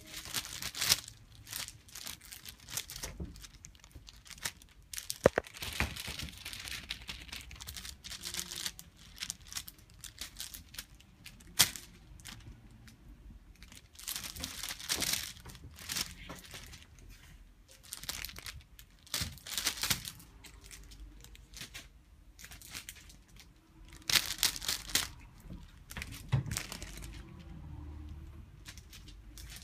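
Rustling and crinkling in irregular bursts, with a few sharp clicks, from a Himalayan kitten playing with a toy.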